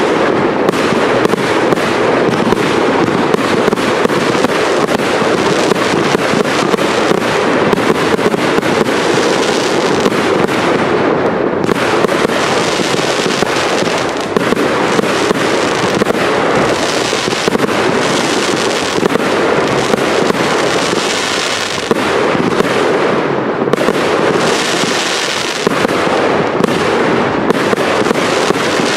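Firework cakes firing in a dense, continuous barrage of launches and aerial bursts, shot after shot without a break.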